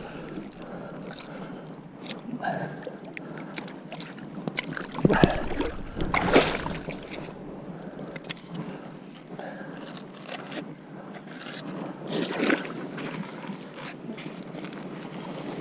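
Splashing and sloshing of shallow river water as a large wels catfish is hauled by hand through the shallows and onto the bank. There are louder splashes or thumps about five and six seconds in, and another near the end.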